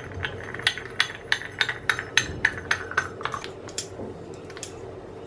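Brass sev maker (sancha) being closed and its threaded handle turned: a quick run of light metallic clicks and clinks, thinning out after about three and a half seconds.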